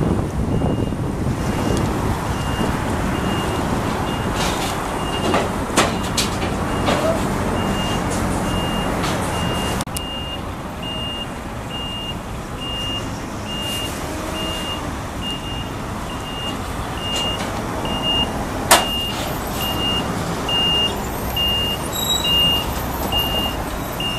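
Heavy truck hauling a low-loader trailer manoeuvring in reverse: its reversing alarm beeps steadily, about twice a second, over the diesel engine running. A few sharp knocks stand out, the loudest about three-quarters of the way through.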